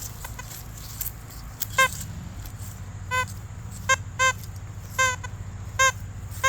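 Metal detector in discrimination mode giving about six short, low-pitched target beeps at irregular intervals as the coil sweeps the ground, over a steady low hum. The operator wonders whether these tones are telling him the target is steel.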